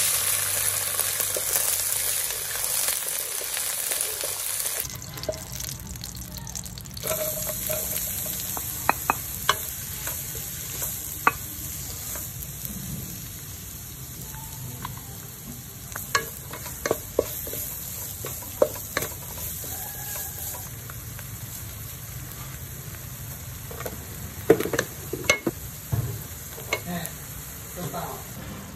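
Oil sizzling in a nonstick wok as chillies, shallots and other ingredients fry, loudest in the first few seconds, then quieter with scattered knocks and scrapes of a wooden spatula stirring in the pan.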